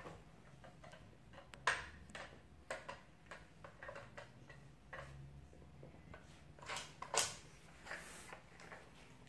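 Plastic pieces of a Trixie Flip Board dog puzzle clicking and knocking as a Yorkshire terrier noses at its cones and sliding lids to get at treats. Irregular light clicks, with louder knocks about two seconds in and near the end.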